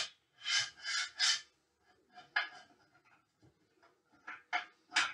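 Short rubbing and scraping strokes from the telescope mount's tripod being handled, legs and central column worked by hand: a quick run of three strokes about a second in, one more after two seconds and another cluster near the end.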